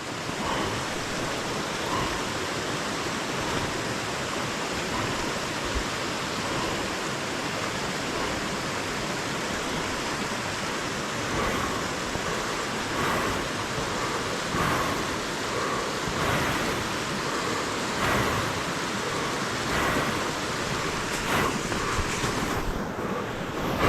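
A creek's water rushing with a steady hiss. Faint short sounds come every second or two over its second half.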